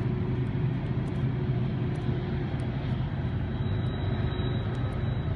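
A steady, low mechanical drone like a motor or engine running, with a few faint small clicks.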